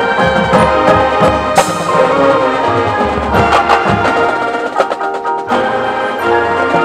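Marching band playing: wind instruments holding chords over front-ensemble percussion such as mallets and wood block. About five seconds in, the low end drops out for a moment under a quick run of percussion strikes.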